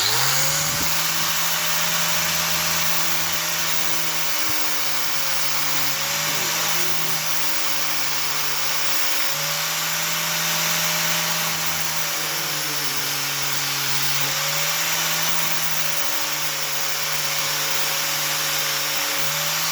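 Electric power tool running steadily, its motor pitch sagging and recovering several times as it is pressed into the work, over a constant grinding hiss.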